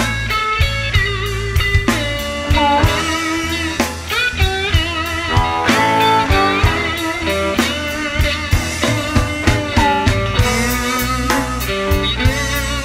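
Live band playing blues rock: an electric guitar leads with bent, wavering notes over bass and a drum kit keeping a steady beat.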